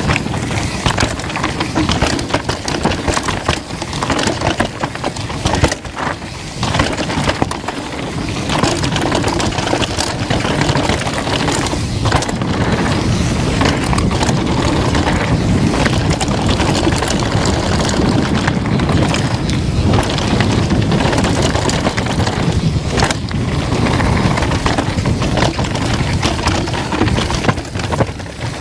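Norco Aurum downhill mountain bike being ridden fast down a rocky trail, heard from an on-board GoPro. Steady wind noise on the microphone is mixed with the tyres running over loose stone and a constant clatter of knocks and rattles from the bike.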